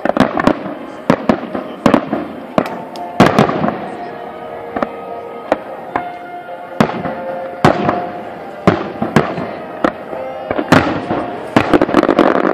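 Aerial firework shells bursting in a rapid, uneven string of sharp bangs, with a dense run of bangs near the end.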